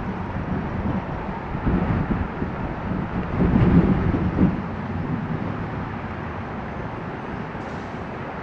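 Steady outdoor rumble buffeted by wind on the microphone, with irregular low gusts that swell loudest about three and a half to four and a half seconds in.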